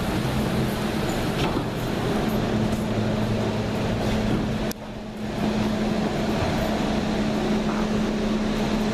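SEPTA Silverliner V electric railcar standing at the platform, its blowers and auxiliary equipment giving a steady hum with a low tone. The sound dips suddenly a little past halfway and comes back within about a second.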